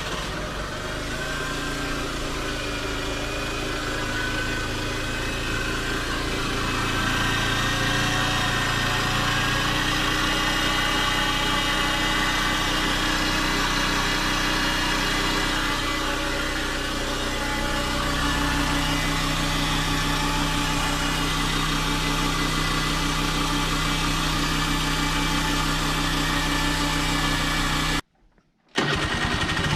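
Honda Dio AF62 scooter's 50cc four-stroke single-cylinder engine idling steadily with no oil in it. Its abnormal noise marks a worn-out engine due for an overhaul. The sound cuts out briefly near the end.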